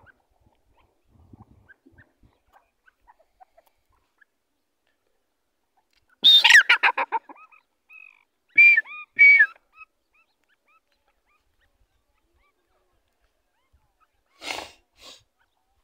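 Grey francolin calling: about six seconds in, a loud, rapid run of harsh notes, then a few short, clear whistled notes, and two rougher notes near the end.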